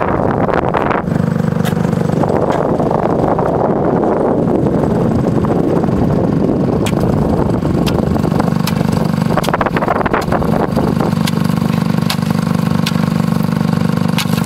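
Small off-road vehicle engine running steadily while riding across lake ice, with wind rushing over the microphone. A scatter of sharp clicks or knocks comes in the second half.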